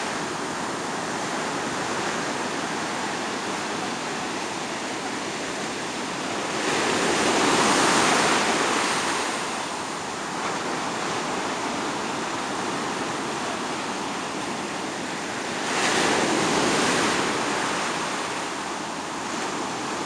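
Surf of the Mediterranean in a storm: a steady wash of waves, with a louder wave breaking and rushing in about a third of the way through and another a little past three quarters.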